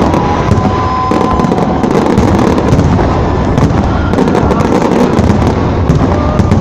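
Fireworks display going off in rapid, dense succession: a continuous mass of bangs and crackling, with a few thin whistling tones over it.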